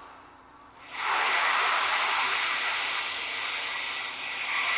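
Ocean drum: the beads inside roll across the drumhead as it is tilted, making a surf-like rushing swish. It dies down, swells up sharply about a second in, and surges once more near the end.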